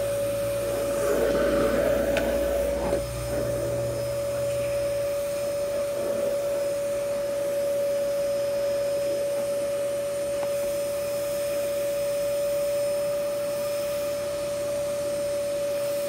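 Canister vacuum cleaner running, a steady motor drone with one pitched tone, as its floor nozzle is worked over carpet.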